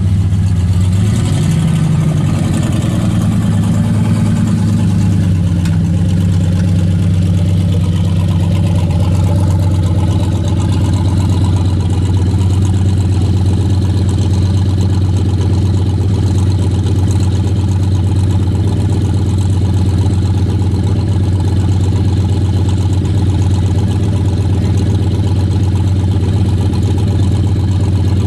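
Late-1970s Chevrolet Malibu coupe's engine with a loud exhaust, revved up and back down over the first few seconds, then idling steadily with a deep note.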